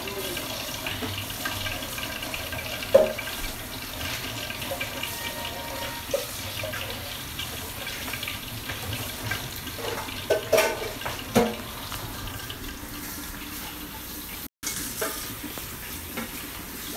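Kitchen tap running steadily into a sink, with a few sharp knocks and clatters of dishes: one about three seconds in and a cluster around ten to eleven seconds. Near the end a frying pan is rinsed under the running tap.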